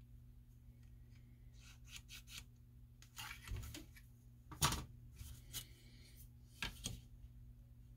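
Faint scratches, rubs and taps as a pen and a plastic angle finder are handled and drawn across a sheet of plastic, the loudest a sharp tap about four and a half seconds in, over a steady low hum.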